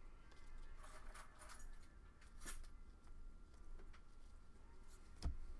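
Faint rustling and sliding of hockey trading cards being flipped one by one from a stack by hand, with a single sharp tap near the end.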